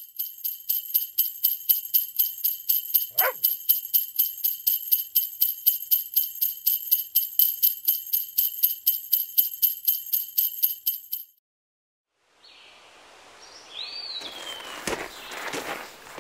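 Jingle bells shaken in a steady rhythm, about four shakes a second, with a brief falling glide about three seconds in; the jingling stops suddenly after about eleven seconds. After a short silence comes a soft hiss with a brief whistling tone and a few knocks.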